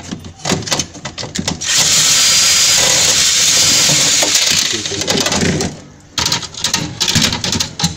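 Cordless drill spinning a flexible shaft extension with a 10 mm socket, running steadily for about three seconds to back out a bolt holding the freezer box. Scattered clicks and plastic knocks come before and after the drill runs.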